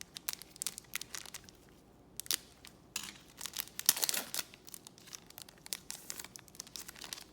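Crinkling and tearing of a trading-card pack wrapper being opened, with the cards handled: a run of sharp crackles, densest about three to four seconds in.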